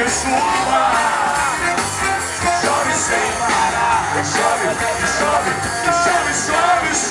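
Pop-rock band playing live through a PA, with drums, bass and a bending melody line, and cymbal crashes about three seconds in and near the end.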